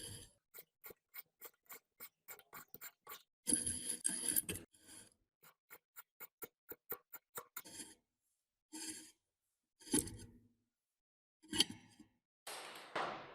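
Small metal parts and hand tools being worked at a bench: two runs of quick sharp clicks, about five a second, a louder scrape between them, then three single clinks and a short swish near the end.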